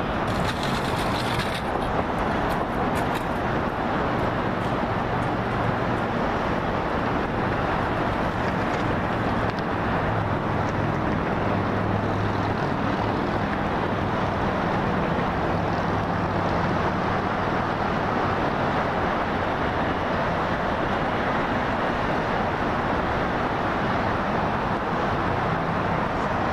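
Steady highway traffic noise, with the low hum of passing vehicle engines coming and going.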